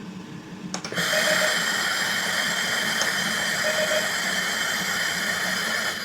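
Two clicks, then about a second in a steady hiss of air and oxygen flow from an ICU ventilator and its compressor starts up, with a thin high tone in it.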